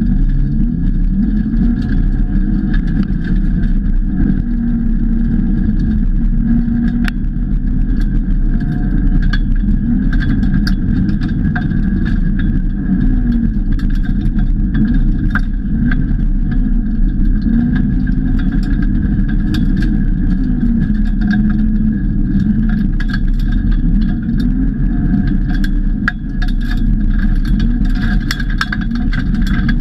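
Heard from inside the cabin, a BMW E46 Compact rally car's engine is under hard load, its pitch climbing and dropping again and again with the gear changes. Many sharp ticks run through it, typical of gravel flung against the car's underside.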